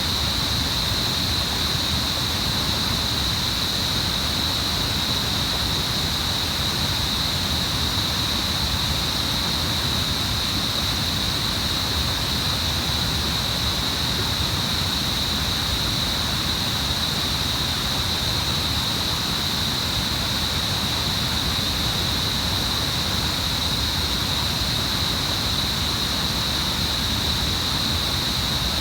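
River water flowing and rushing in a steady, unbroken stream.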